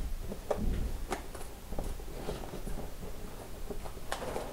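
Scattered light clicks and taps as a plastic clip-on car sun-visor and its packaging are handled.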